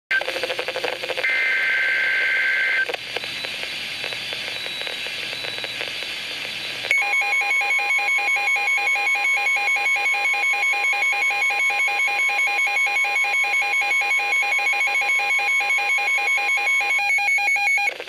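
Weather radio sounding a severe thunderstorm warning alert. About a second in comes a short burst of warbling two-tone digital alert data, followed by a few seconds of static. From about seven seconds a long steady warning alarm tone sounds together with the receiver's own rapid pulsing alarm beeps; the steady tone stops about a second before the beeps do.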